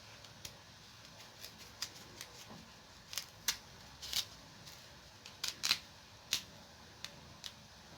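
A kitchen knife peeling and cutting a raw turnip: short, sharp scrapes and clicks at irregular intervals, a few louder ones in the middle.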